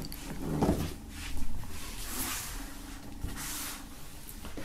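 Several soft rustling and sliding swishes, about a second apart, as cards, prints and a cotton T-shirt are gathered and slid off a wooden tabletop.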